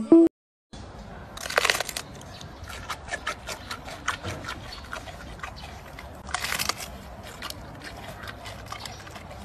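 Giant panda chewing bamboo: a run of crisp crunches and snaps, densest and loudest about a second and a half in and again around six and a half seconds.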